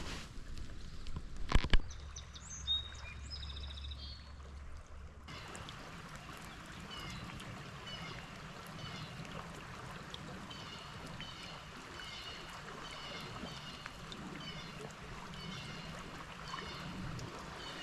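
Flowing river water with a songbird singing short, high phrases about once a second. Two sharp knocks sound about a second and a half in.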